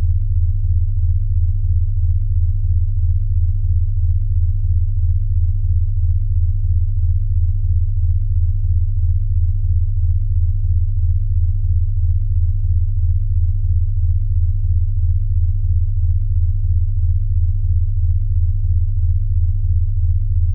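A steady, loud, low-pitched electronic tone of a sound-therapy track, throbbing regularly about two to three times a second.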